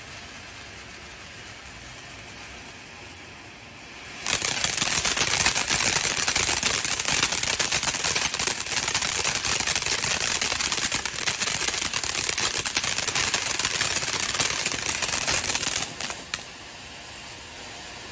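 Ground fountain fireworks spraying sparks with a steady hiss. About four seconds in, a much louder fountain starts up with a dense hiss and rapid crackling that runs for about twelve seconds and cuts off suddenly.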